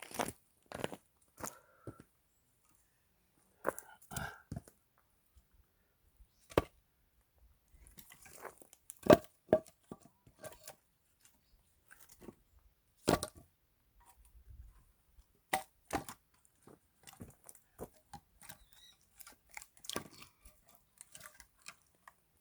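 Axe splitting firewood logs: irregular sharp strikes with the wood cracking and tearing apart, two blows much louder than the rest, smaller knocks and crackles between.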